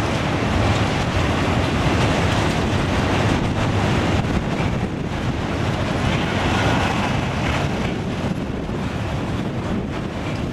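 Long freight train of loaded double-deck car-carrier wagons rolling past: a steady rumble of steel wheels on rail, with faint clicks as the wheels pass over the track.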